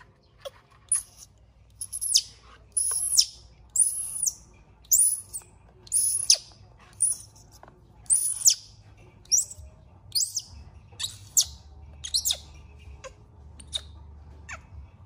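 Newborn baby monkey screaming in distress: about a dozen shrill, high-pitched cries, each rising then falling, roughly one a second, growing weaker near the end.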